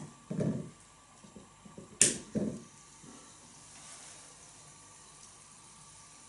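Plastic electrolysis water tester handled on its wine glasses: two dull knocks and a sharp click about two seconds in. Then only a faint steady hiss while the electrodes run.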